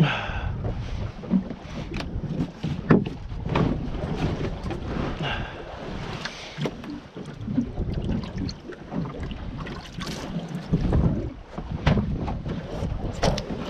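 Wind buffeting the microphone on a boat at sea, a steady low rumble, with a dozen or so scattered knocks and clatters as gear and a live squid are handled on deck.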